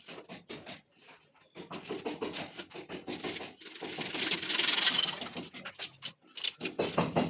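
Scraping and rubbing with scattered knocks, as of hand work on a pipe or fitting. A longer, denser hissing scrape comes about four seconds in and lasts about a second and a half.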